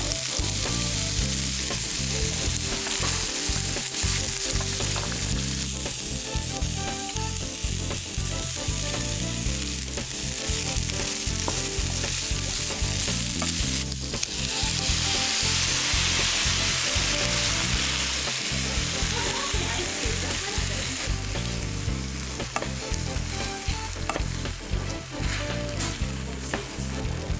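Chicken and vegetables sizzling as they stir-fry in a hot pan. The sizzle swells louder for several seconds about halfway through.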